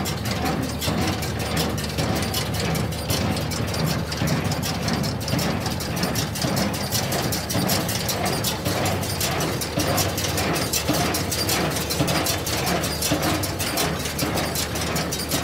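Hay baler running, driven by a tractor: a steady low engine rumble under the fast, continuous clatter of the baler's moving mechanism.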